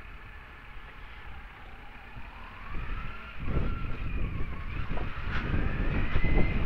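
Motorcycle engine running at low road speed, its whine rising in pitch from about halfway as it speeds up. The low rumble and wind noise grow louder at the same time.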